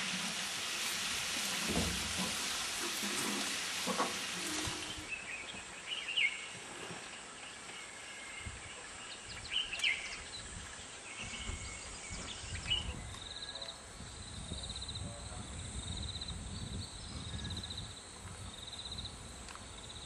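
Outdoor bush ambience. A dense hiss fills the first few seconds. Then come scattered short bird chirps, and from about two-thirds of the way in a high, rapidly pulsing trill repeats in short bursts.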